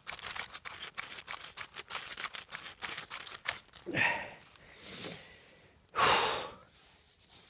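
Knife spine scraped fast along a ferrocerium rod, a rapid run of short rasping strokes, several a second, trying to throw sparks into birch shavings. The scraping stops about three and a half seconds in, followed by two heavy breaths, the second the louder. The rod is not giving a spark, which the user complains of.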